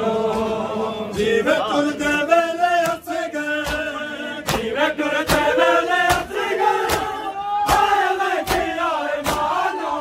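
Men chanting a Saraiki noha, a mourning lament for Muharram, in a slow sung line, with sharp, evenly spaced hand strikes on the chest (matam) a little more than once a second.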